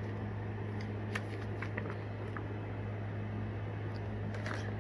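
Steady low mechanical hum, like a room fan, under a few soft clicks and rustles of a paper booklet and packaging being handled.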